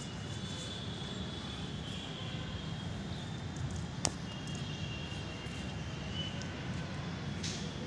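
Steady outdoor background rumble with faint, thin high tones over it and a single sharp click about four seconds in.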